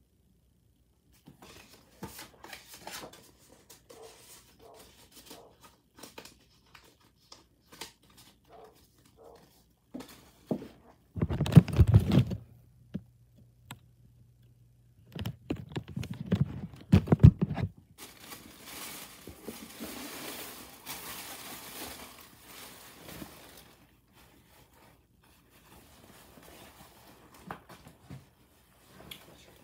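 Tissue paper in a clothing box rustling and crinkling as it is handled and pulled aside, with a jacket being lifted out. Two spells of loud, muffled bumping, the loudest sounds, come about eleven seconds in and again from about fifteen to eighteen seconds in, followed by a few seconds of steady rustling.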